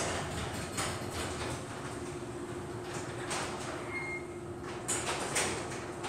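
Electric garage door opener raising a sectional steel garage door: a steady motor hum under a running rattle, with several sharp clanks from the panels and rollers in their tracks.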